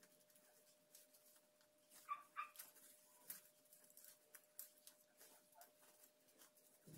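Near silence with faint clicks and a faint steady hum. About two seconds in, a dog gives two brief, soft whimpers.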